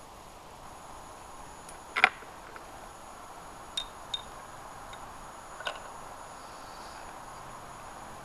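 Metallic clicks and clacks of a Savage Model 10 bolt-action rifle being worked between shots. There is a sharp double clack about two seconds in, the loudest, then three lighter clicks over the next few seconds, over a steady low hiss.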